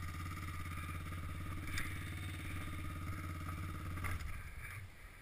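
Quad (ATV) engine running at a low, steady idle, then dying away about four seconds in.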